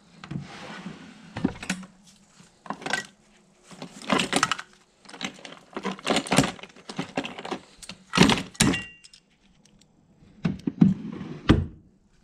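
A wooden drawer pulled open and metal air tools clattering against each other as they are rummaged through: irregular clanks and knocks, the loudest about eight and eleven and a half seconds in.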